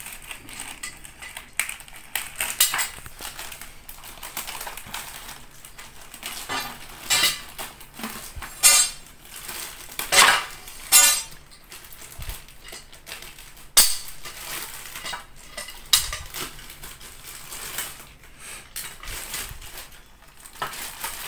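Plastic wrapping crinkling as it is cut with scissors and pulled off a white tubular wall-mounted clothes rack. Irregular rustling is mixed with clicks and clinks as the rack's parts are handled, and there are a few louder swishes and knocks.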